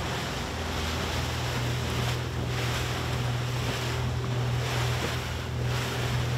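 Boat running at sea: a steady low engine hum under the rush of water and wind buffeting the microphone, which swells and eases several times.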